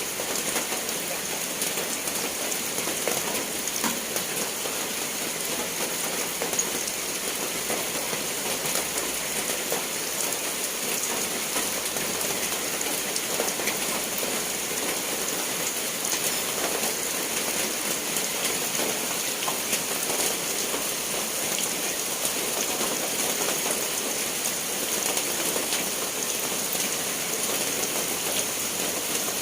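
Steady rain falling, an even hiss of rain studded with many small drop ticks, unchanging throughout.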